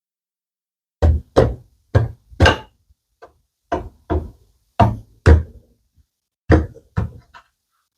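Hardwood slats being tapped down into the grooves of a wooden frame-and-panel assembly: about ten sharp wooden knocks in pairs, with a short pause between each pair.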